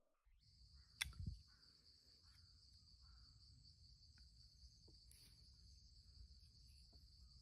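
Near silence, with a faint steady high-pitched buzz and a single sharp click about a second in.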